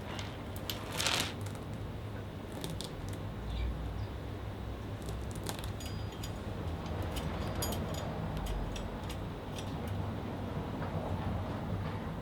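Scattered small metallic clicks and clinks of bicycle parts being handled and refitted, with a slightly louder clink about a second in, over a low steady hum.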